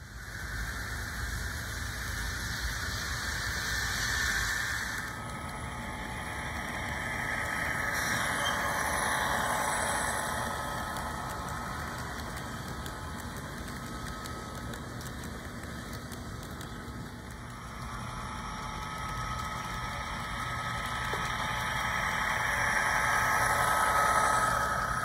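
HO-scale model commuter train running past on the track, its LokSound sound decoder playing a diesel locomotive engine sound over the rolling noise of the wheels. The sound swells and fades as the train comes near and moves away.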